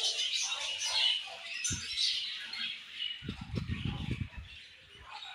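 A group of budgerigars chirping and chattering, many short overlapping calls. A low rumbling noise comes in for about a second a little past the middle.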